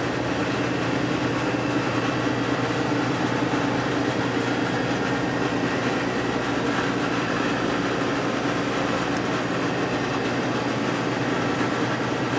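Steady hum of running machinery: a low drone made of several steady tones with an even rush of air noise over it, unchanging throughout.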